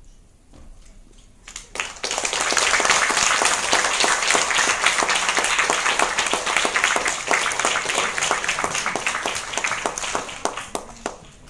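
Audience applause. After a short quiet pause it starts with a few scattered claps, swells into steady clapping about two seconds in, and thins out near the end.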